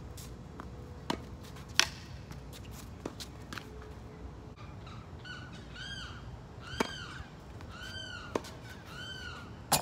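Tennis ball pops off rackets and the court in a rally, sharp single hits a second or more apart, the loudest about two seconds in. From about halfway through, a bird calls about five times, each a short rising-and-falling call.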